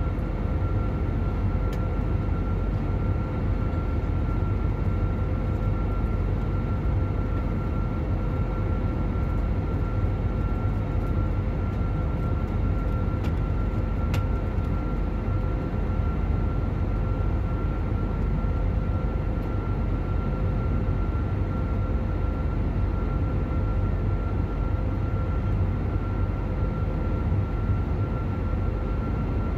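Cabin noise inside an Airbus A321neo airliner in flight, seated over the wing: the steady deep rumble of its Pratt & Whitney PW1100G geared turbofan engines and the airflow over the fuselage, with a faint even whine held at a constant pitch.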